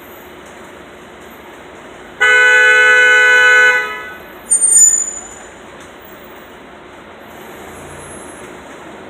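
A vehicle horn sounds one long, steady blast of about a second and a half. A second, shorter and choppier loud burst follows about a second later, over steady street traffic noise.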